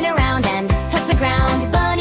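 Upbeat children's song music with a steady beat and a bright melody.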